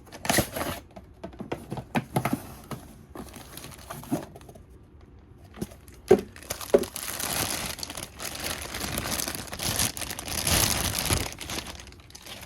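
Plastic toy packaging being handled and opened: scattered rustles and knocks, two sharp clicks about six seconds in, then a long stretch of plastic crinkling and tearing.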